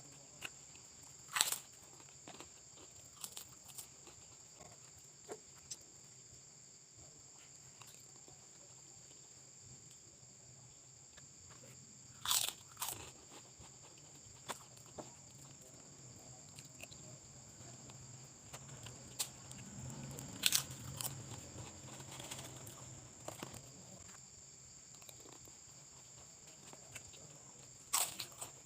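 Close-miked eating of lontong tahu: quiet chewing with a few sharp, crisp crunches spaced several seconds apart.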